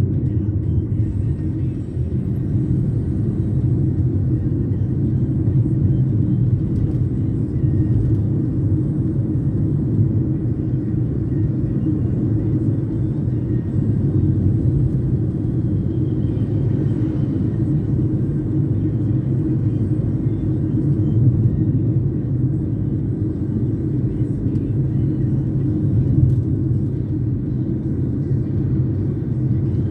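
Steady low road and engine rumble of a taxi in motion, heard from inside the cabin.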